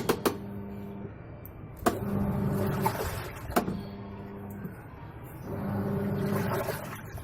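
Panasonic NA-F72L8 top-load washing machine agitating with an empty drum: its motor hums in stretches of a second or two, with quieter gaps and sharp clicks between them. It has a newly fitted gearbox, the old one having made a noise that adjusting it could not cure.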